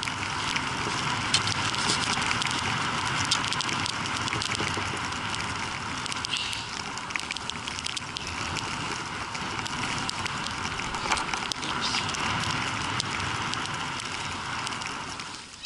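Skis hissing and scraping over groomed snow during a downhill run, with many small crackles in the noise; it fades near the end as the skier slows to a stop.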